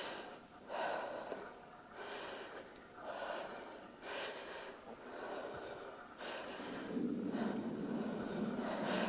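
A person breathing heavily, with a puff of breath about once a second, growing louder and more continuous near the end.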